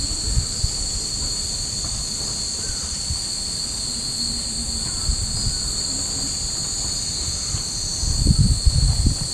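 A steady, high-pitched chorus of cicadas droning without a break, with gusts of wind rumbling on the microphone that grow stronger about eight seconds in.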